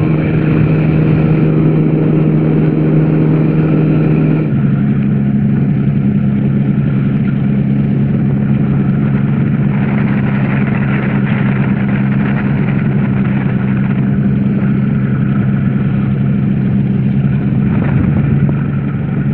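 Weight-shift microlight trike's engine and propeller running steadily in flight. About four seconds in, the engine note changes to a different steady tone, as when the throttle setting is changed.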